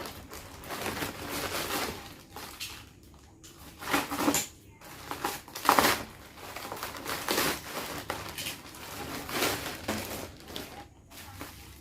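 Plastic parcel packaging and bubble wrap being opened by hand: rustling and crinkling, with several louder sudden crackles and rips.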